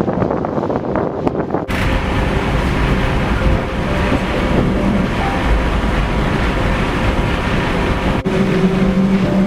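Class 483 electric train, rebuilt from 1938 London Underground tube stock, running with a steady rumble of wheels and motors. The sound changes abruptly twice, about two seconds in and near the end.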